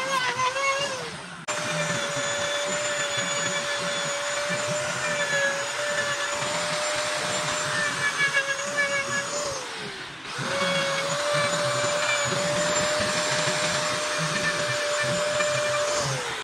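High-speed electric carving tool running with a steady high whine and a hiss of cutting noise over it. Three times its pitch falls away as it winds down, and each time it starts straight back up.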